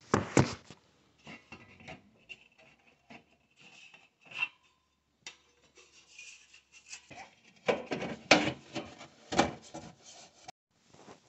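Metal floor vent cover being worked and pushed into its floor opening: scraping and clattering of sheet metal against the duct and flooring, with a sharp knock at the start and a cluster of louder clanks about eight to nine and a half seconds in.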